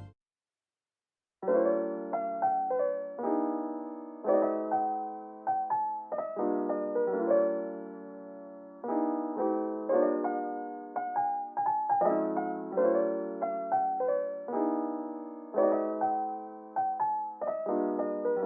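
Background music: a soft piano melody of struck notes, each dying away, starting about a second and a half in after a moment of silence.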